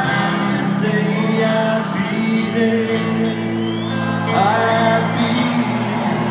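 Rock band playing live in an arena, with a male singer's voice over the guitar, bass and drums, heard from among the audience.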